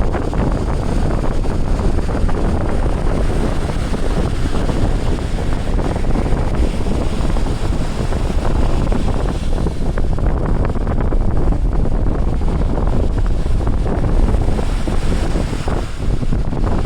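Wind buffeting the microphone in a steady, loud rumble, with ocean surf washing underneath.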